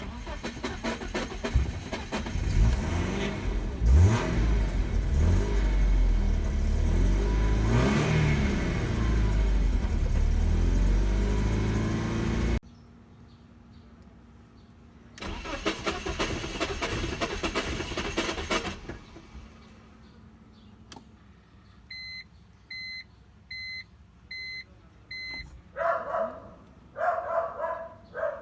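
A hard-starting BMW E46 engine is cranked and starts with the accelerator pressed, running for about twelve seconds with uneven revs rising and falling before it cuts off sharply. A second start runs only about three seconds and stops, then the car gives five short warning beeps. A few short irregular sounds come near the end.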